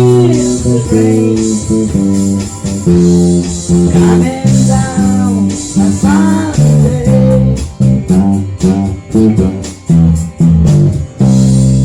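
Rock band's instrumental ending on guitars and bass guitar: rhythmic chord strokes that stop near the end, giving way to one final held chord left ringing.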